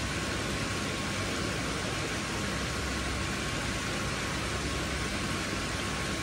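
Steady, even rushing noise of koi pond water and pumps, with a thin high hum running through it.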